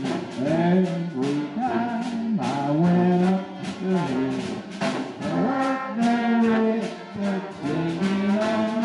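Brass band playing, trombones sliding between notes over a sousaphone bass line, with trumpet and saxophone.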